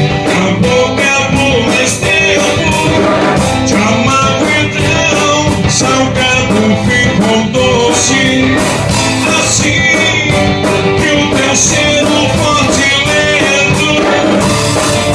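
Acoustic guitar strummed with a drum kit keeping a steady beat, the cymbal ticking several times a second, and a man singing over it.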